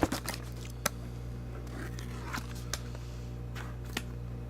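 Scattered soft crackles and clicks of thick plastic shrink wrap being picked at on a trading-card box as it resists being torn open.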